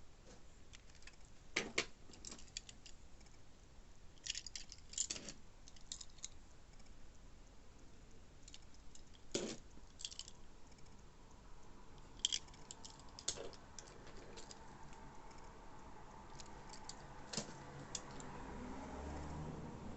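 Scattered clicks, taps and light rattles of small diecast model cars and their packaging being handled.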